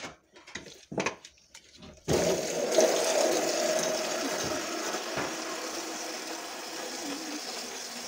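A few light rustles and knocks, then about two seconds in water starts pouring and runs on steadily, slowly easing off: water being run onto chopped straw to wet it for animal feed.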